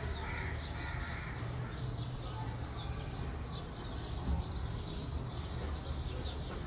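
Small birds chirping over and over, short high calls over a steady low hum.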